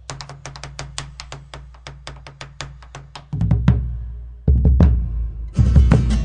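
Background music: a quick, clicking percussion beat that builds, with deep drum hits coming in past the middle and the full band joining near the end.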